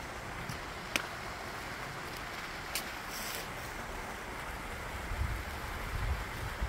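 Small fountain jets splashing steadily into a garden pond. A couple of light clicks come in the first few seconds, and wind buffets the microphone with low rumbles from about five seconds in.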